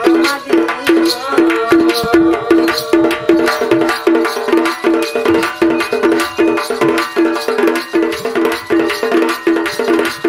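Sambalpuri folk music accompaniment: drums keep a quick steady beat under a melodic instrument repeating a short figure over and over. A voice sings briefly near the start.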